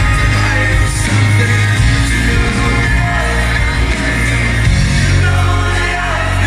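Live pop-rock band playing loudly, with acoustic guitar and keyboards over a steady low bass, and singing.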